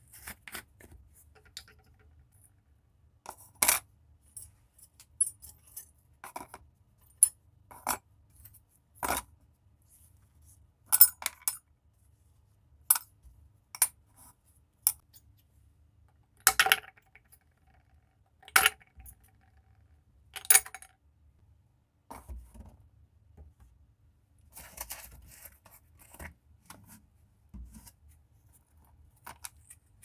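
Small hard lumps dropped one at a time into a bottle, each landing with a sharp clink, a few ringing briefly; softer clicks and rattles of handling come between them.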